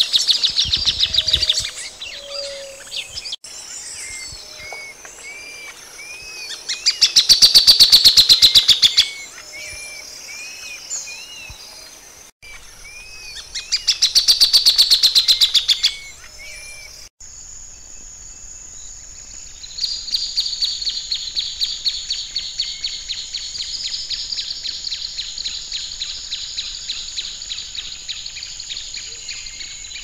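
Plain thornbird songs: loud runs of rapid, evenly repeated notes, two of about two seconds each, then a longer chattering run lasting about ten seconds near the end, with softer single call notes between them. A steady high whine sits in the background during the last part.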